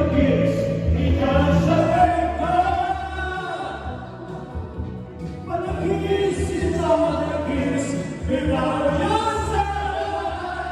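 Live band accompaniment with several voices singing a nostalgic Chinese pop song, karaoke-style, over a steady bass line.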